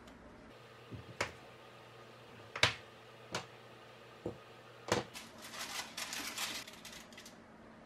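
Kitchen handling sounds: six or so separate light clicks and knocks, the sharpest about two and a half seconds in, then about two seconds of light crinkly rustling.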